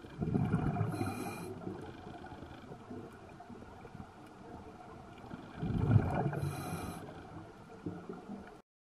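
Scuba diver's exhaled breath bubbling out of a regulator underwater: two bubbling rumbles about five seconds apart, each ending in a short hiss. The sound cuts off suddenly near the end.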